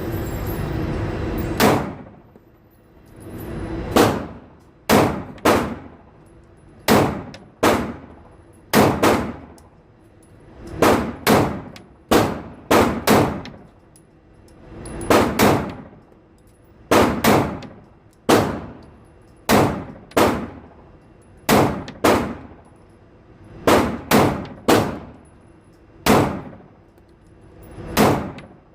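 Pistol shots at a shooting range: about two dozen single shots at an uneven pace, mostly about a second apart, some in quick pairs. Each shot is a sharp crack that rings out and dies away over about half a second.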